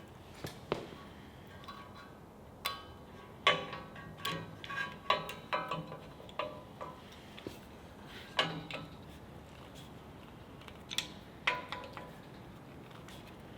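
Irregular metal clanks and taps, steel parts being knocked or set against each other, each ringing briefly; about a dozen strikes, in clusters around 3 to 7 s in and again near 8.5 and 11 s in.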